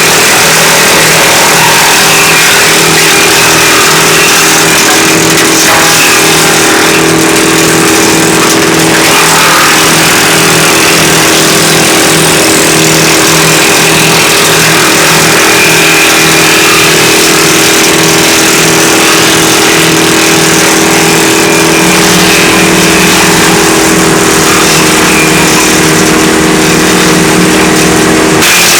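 WC 8 wood chipper running steadily under power, a loud even machine drone with a constant hum; the drone changes pitch briefly near the end.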